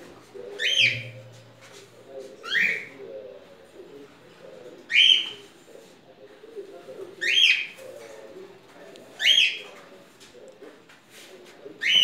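Cockatiel giving loud, shrill calls, six of them about two seconds apart, each a short screech that sweeps upward in pitch.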